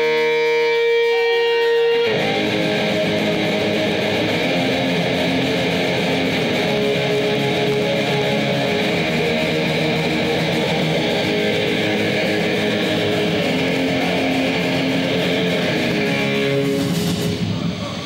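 Punk band playing loud at a soundcheck, with distorted electric guitars and bass through stage amplifiers. A chord rings out at first, then the full band kicks in about two seconds in and plays on until it breaks off near the end.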